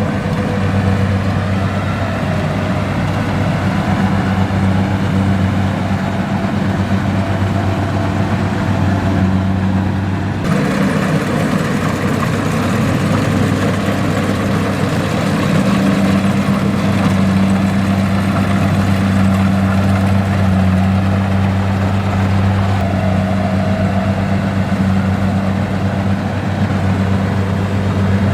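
Kubota DC-70 combine harvester's diesel engine running steadily with a low drone while harvesting rice. The sound shifts abruptly about ten seconds in.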